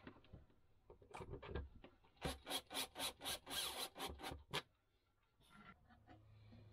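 Cordless drill-driver sending screws into the wooden mounting plate of a small 12-volt extractor fan: a quick run of short rasping bursts, about four a second, starting about two seconds in and stopping after a couple of seconds.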